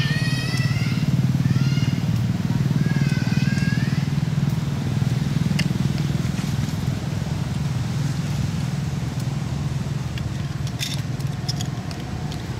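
A steady low engine-like drone, with two short high-pitched wavering calls in the first few seconds and a few sharp clicks later on.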